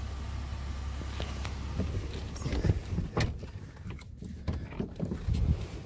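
A vehicle engine idling with a steady low hum, then a run of irregular knocks and clunks from about two and a half seconds in, the loudest near the middle.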